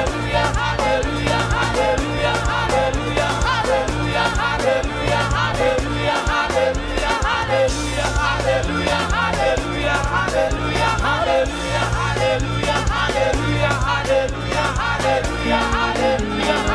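Live gospel praise music: a congregation and choir singing along with a band, steady bass notes and drums keeping a steady beat.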